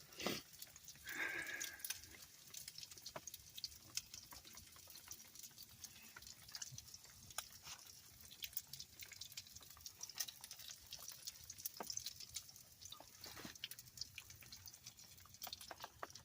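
Raindrops dripping and tapping irregularly on a tarp tent, a steady scatter of faint ticks over a light hiss.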